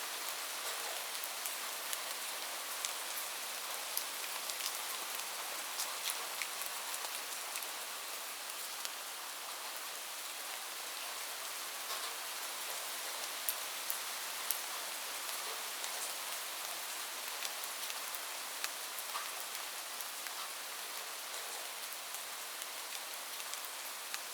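Light rain falling steadily: an even hiss of rain with many separate drops ticking on a surface.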